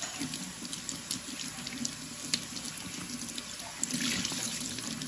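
Kitchen faucet running steadily into a stainless steel sink, the stream pouring over a wet bundle of hair as the shampoo is rinsed out. About four seconds in, the splashing gets louder as a hand squeezes the hair under the stream.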